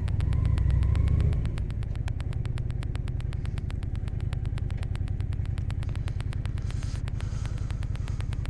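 Honda Shadow 750 Aero V-twin motorcycle engine idling at a standstill, with a steady, even pulse. It is a little louder for the first second or so, then settles.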